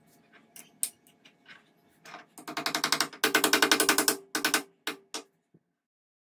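Metal parts of a homemade aluminium sharpening jig clicking as they are handled and fitted together: a few scattered taps, then a quick even run of about ten clicks a second, then a few last clicks before it stops abruptly.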